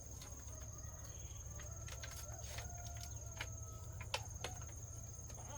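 Chickens clucking with scattered short chirps and clicks, over a steady high-pitched insect trill.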